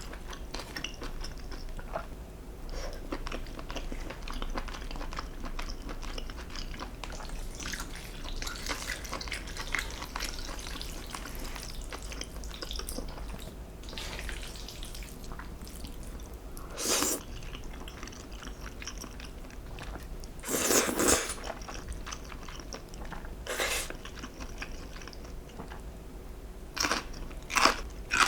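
Close-miked eating sounds: steady chewing with a few louder crunchy bites in the later part.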